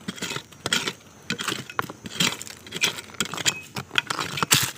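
A thin stick scraping and raking through gravelly soil, small stones clicking against each other, in a quick irregular run of short scrapes. The soil is being cleared to uncover buried hed phaw puffball mushrooms.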